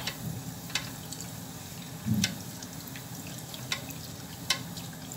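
A dough round frying in oil in a stainless steel saucepan while oil is spooned over it with a metal spoon: a low, steady sizzle with dripping and a few sharp clicks. The oil is still only warm, not very hot, so the frying is gentle; the basting is what makes the dough puff.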